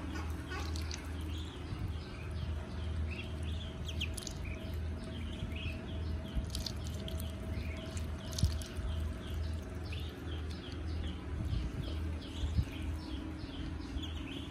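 A group of ducklings peeping rapidly and continuously, short high peeps coming several a second, over a low steady hum. Two brief knocks stand out, about two-thirds of the way through and near the end.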